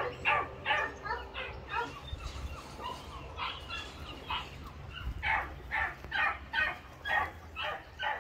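Beagle barking in a quick, steady series of short barks, about two a second, easing off a little in the middle and picking up again near the end.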